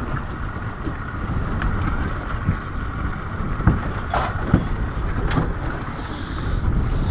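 Wind buffeting the microphone over choppy water against a small runabout's hull, with a few sharp knocks about two and a half to four and a half seconds in as a person clambers across the boat toward the stern.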